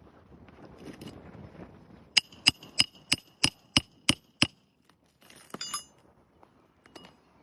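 A hammer strikes the metal Roof Snake shingle tool eight times in quick succession, about three blows a second, each with a ringing metallic ping, driving a roofing nail through the shingle. About a second later comes a brief clatter of metal clinks.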